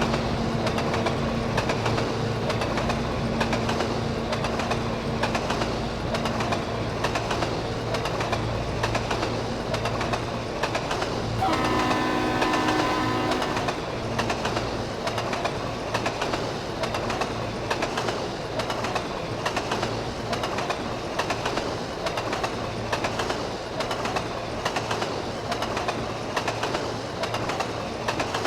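A train going by: a steady low engine hum, then a single horn blast of about two seconds near the middle, followed by the regular clickety-clack of wheels passing over rail joints.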